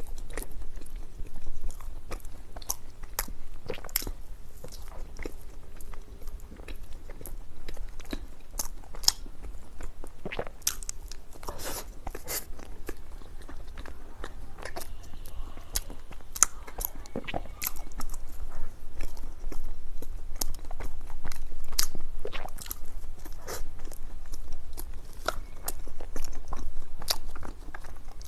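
Close-miked eating: a person biting and chewing a dessert, with irregular crisp clicks and crunches.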